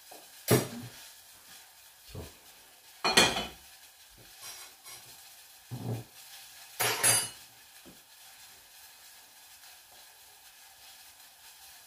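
Cookware clattering: a frying pan moved across a gas hob and a bowl and utensils knocking, about five separate knocks in the first eight seconds, the loudest about three seconds in. Under them runs a faint steady sizzle of oil heating in the pan.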